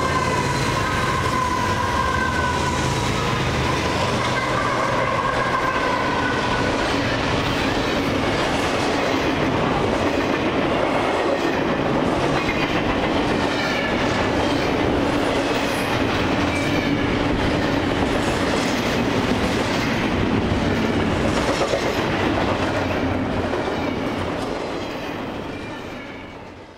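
CSX double-stack intermodal freight train passing close by. The lead diesel locomotives go past with the horn sounding for the first several seconds. Then comes a steady rumble and clickety-clack of the loaded container well cars rolling over the rails, which fades out near the end.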